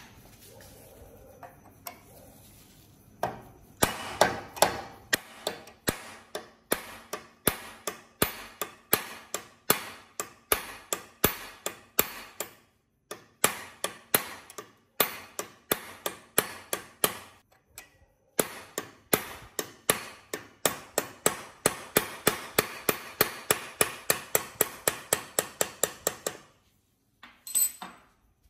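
A hammer strikes a steel punch held in the hub of a rusted flywheel rotor on an old Honda moped engine. It makes a long run of sharp metal blows, about three a second, broken by two short pauses.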